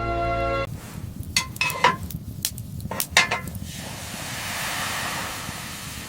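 Music stops abruptly; then several sharp clinks, each with a short ring, and then a steady hiss.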